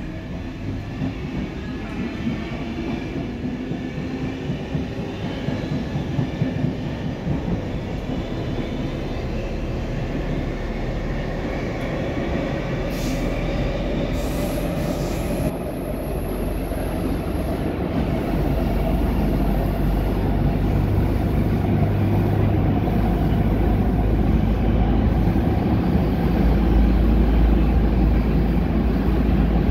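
Stockholm metro C14 car accelerating away from a station, heard from inside the car. The traction motors' whine rises steadily in pitch while the wheel-on-rail running noise builds into a loud, deep rumble as speed increases, with a brief high squeal about halfway through.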